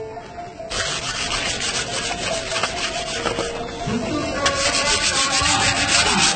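A long metal blade scraped back and forth across a brick in quick, rhythmic rasping strokes, starting under a second in, with a short lull near the middle.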